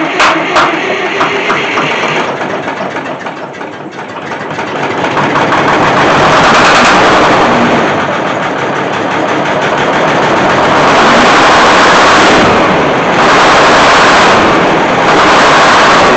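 Detroit Diesel 6-71 two-stroke diesel being cranked by its starter, with a slow, even beat of compression strokes about three a second. It catches about four seconds in and runs loud, its revs dipping and rising several times. This is a cold start with no ether, on a single battery that may be weak from the cold.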